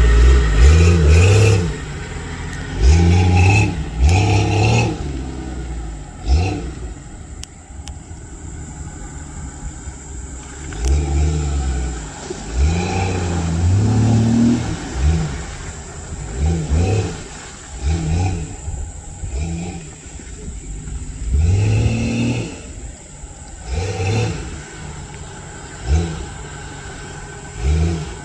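Off-road vehicle engine revving in repeated bursts while driving through mud, each rev rising and falling in pitch every one to three seconds over a lower running drone.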